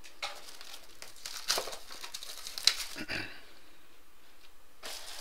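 Plastic shrink wrap crinkling and tearing as a sealed box of baseball cards is unwrapped: a run of quick rustles with a sharp click near the middle, a quieter stretch, then more rustling near the end.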